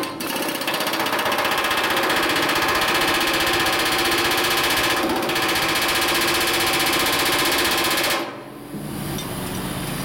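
Pneumatic rivet gun hammering rapidly on a hot steel rivet, forming the rivet's head while the other end is backed up with a bar. It runs steadily and stops about eight seconds in.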